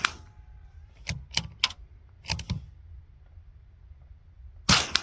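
Suppressed .22 LR rifle firing a shot about four and a half seconds in, with the tail end of the previous shot at the very start. In between come several short sharp clicks.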